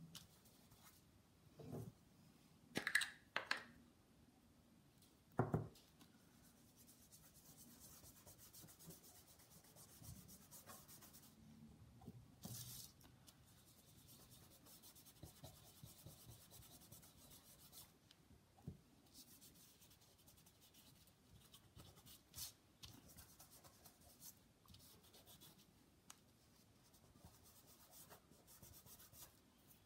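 Faint rubbing of a fingertip working gilding wax in small circles over a die-cut piece, broken by a few short knocks, the loudest about three and five seconds in.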